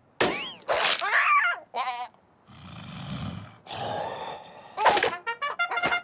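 Cartoon character's wordless vocal sounds, groans and gasps with wobbling, gliding pitch, cut with slapstick sound effects: a sharp hit near the start, two long breathy rushes in the middle, another hit about five seconds in, and a fast run of rattling ticks near the end.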